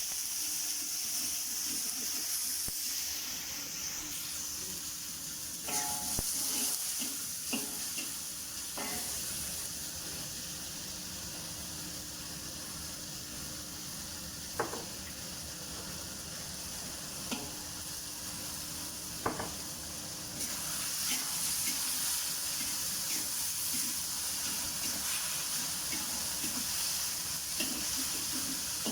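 Beef and asparagus stir-fry sizzling in a pan, with a few sharp clinks of a cooking utensil against the pan. The sizzle swells louder about two-thirds of the way through.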